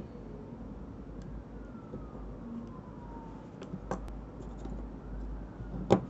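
Folding knives handled on a cloth-covered table: a small click about four seconds in, then a sharp clack near the end as a knife is picked up. Underneath, a steady low hum and a faint tone that slowly falls in pitch.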